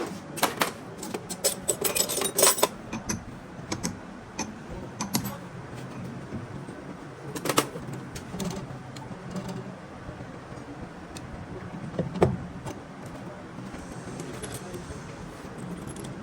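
Small metal parts and hand tools clinking and tapping, a quick run of clicks at first and then a few single knocks, over a steady low hum.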